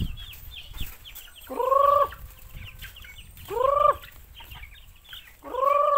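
Chickens: three loud, drawn-out calls about two seconds apart, each rising and then falling in pitch, over continual high, short peeping from the flock.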